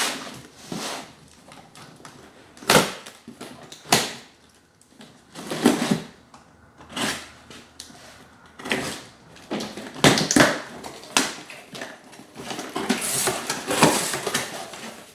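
Cardboard box and packaging being opened and handled, with rustling and crinkling broken by a dozen or so sharp, irregular knocks and cracks.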